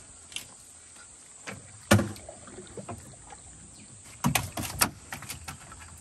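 A gillnet being hauled by hand into a wooden dugout canoe, water dripping and splashing off it, with knocks on the wooden hull. One sharp knock about two seconds in is the loudest, and a quick cluster of knocks comes just past four seconds.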